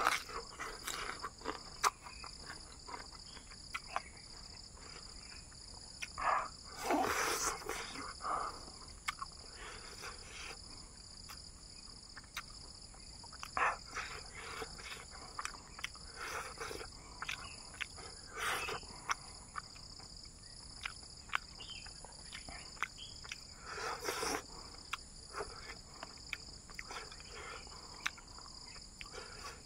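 Close chewing and mouth-smacking of a man eating fried fish by hand, with clicks and short wet bursts every few seconds. Behind it, a steady high buzz of insects.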